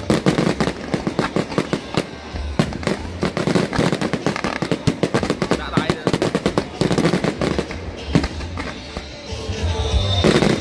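Fireworks display: a dense, continuous run of sharp bangs and crackles, several a second, building to a louder cluster near the end.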